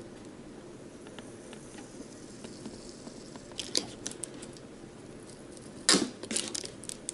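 Plastic clicks and scrapes from the side tabs of a GoPro display box being pulled down: a few faint clicks partway through, then a louder snap and a quick run of clicks near the end.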